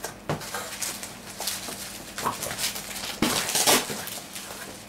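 Cardboard box and plastic packaging being handled and opened, with irregular rustling and scraping and a louder run of rustling about three seconds in.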